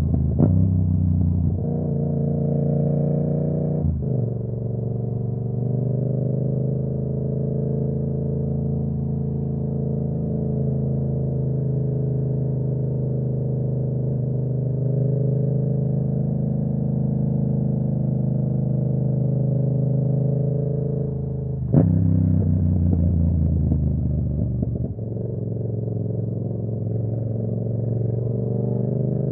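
Yamaha R7's parallel-twin engine running steadily at cruising speed. There are brief breaks about four seconds in and again a little past twenty seconds, each followed by the pitch falling as the bike slows.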